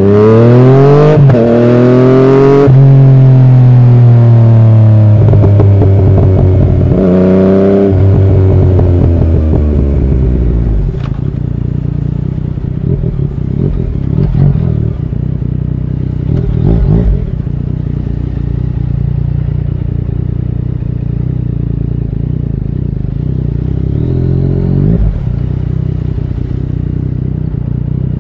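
Yamaha MT-09's three-cylinder engine through an Akrapovič exhaust: it revs up, with two quick breaks in pitch like upshifts in the first three seconds, then the pitch slowly falls as the bike slows. From about eleven seconds in it settles into a steady low idle.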